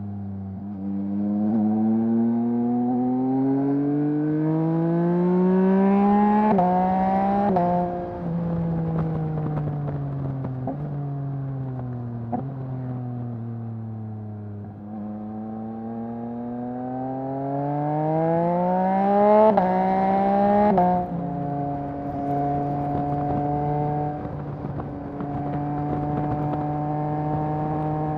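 Yamaha MT-09's 890 cc inline three-cylinder engine through a Mivv full-system exhaust, riding: it pulls hard with rising revs, snaps through two quick upshifts, slows with falling revs and two sharp cracks, pulls up through two more upshifts, then holds a steady cruise.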